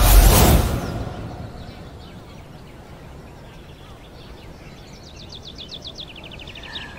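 A loud rushing burst of noise, deepest in the bass, at the start, fading away over about two seconds. Then quiet outdoor background, with a bird's rapid trill of high chirps near the end.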